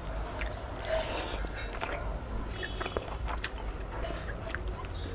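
A person chewing a mouthful of rice and curry, eaten by hand, close to the microphone, with many short mouth clicks throughout.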